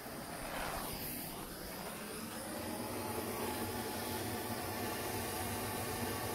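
Handheld propane cylinder torch burning with a steady hiss as its flame is played on charcoal briquettes and fire-starter bundles to light them. The hiss grows a little louder over the first couple of seconds, then holds.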